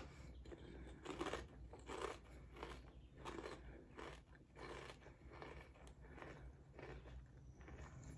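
A person chewing a thin Lay's potato chip: faint crunches about twice a second, growing softer toward the end as the chip breaks down.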